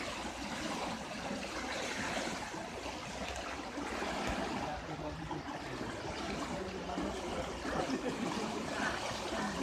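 Swollen, muddy canal water rushing and churning through a brick bridge opening in a steady flood current.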